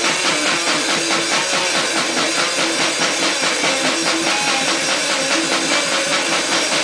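Loud, dense death-grind noise music: fast, steady drumming under distorted, noisy guitar.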